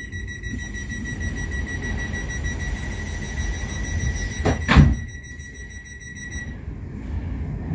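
Inside a class 350 Desiro electric multiple unit on the move: a steady low rumble of the running train with a steady high-pitched whine that cuts off about six and a half seconds in. A single loud thump comes a little under five seconds in.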